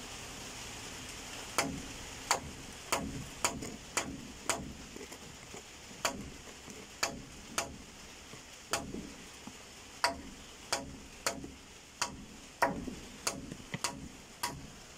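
Small hand trowel knocking against the sides of a plastic tub as it scoops and works potting soil. The sharp, irregular knocks come roughly one or two a second, starting about a second and a half in.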